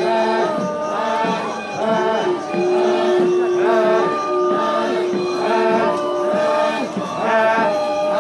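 Many male voices chanting together in short repeated phrases, with held notes and sliding pitches: a Naga warriors' group chant sung while marching in procession.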